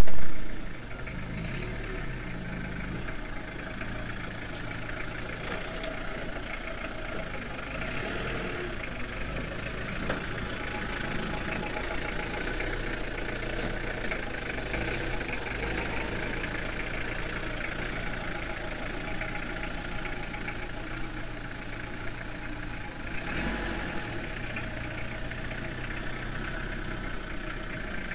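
Pickup van's engine idling steadily, after a brief loud pop at the very start.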